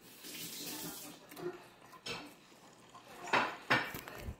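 A ceramic plate knocking and scraping on a wooden table: a soft rustle first, then a few separate sharp knocks, the loudest about three and a half seconds in.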